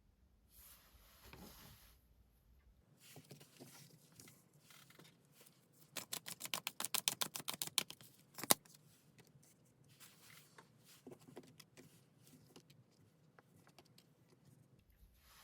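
Tarot cards being handled: soft rustling and light taps, then a fast run of card clicks for about two seconds, like a riffle shuffle, and one sharp tap as the deck is knocked square about halfway through.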